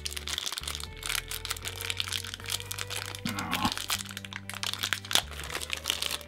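Clear plastic accessory bag crinkling and crackling as it is handled and opened, over background music with held low notes.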